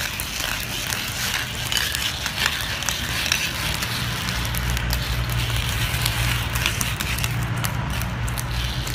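Small roller skates on a dog's paws rolling over stone paving: a steady rolling rumble with many small clicks and clatters from the wheels.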